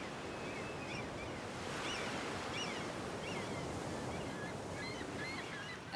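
Steady wash of sea waves, with short high chirps scattered throughout.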